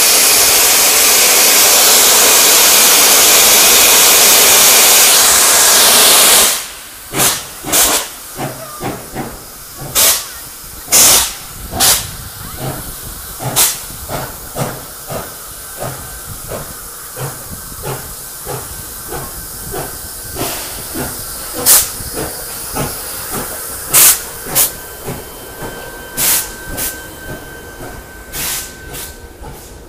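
NSWGR 59 class steam locomotive 5917 starting away: a loud steady hiss of steam blasting from its open cylinder drain cocks, which cuts off suddenly about six seconds in, then separate, unevenly spaced exhaust chuffs as it gets moving and pulls past.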